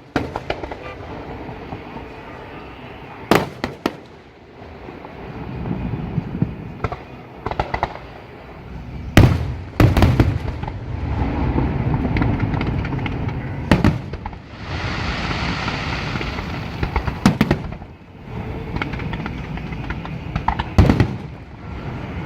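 Aerial fireworks display: shells bursting in sharp, loud reports, about six of them at irregular intervals. Between the bursts there is rolling rumble and crackle, with a longer hissing stretch a little past the middle.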